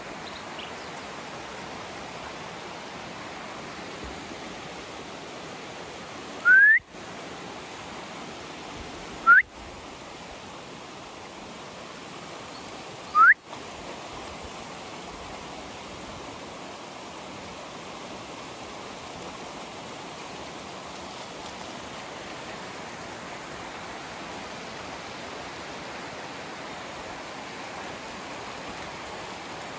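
Shallow stream running over stones, a steady rush of water. Over it, three short, loud, rising whistles, a few seconds apart, in the first half.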